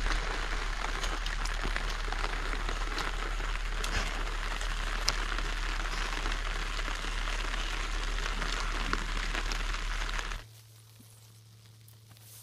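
Steady rain pattering, a dense hiss full of fine drop ticks, that cuts off abruptly about ten seconds in, leaving only a faint low hum.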